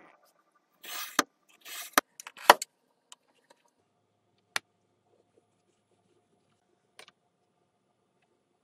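Utility knife drawn along a steel ruler, scoring a thin wood sheet in two short scraping strokes, followed by a few sharp clacks, the loudest about two and a half seconds in. After that, only scattered light taps.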